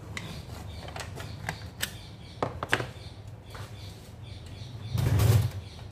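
Scattered clicks and light taps of a plastic tub being handled over a plastic cutting board, with a louder knock and rustle about five seconds in, over a low steady hum.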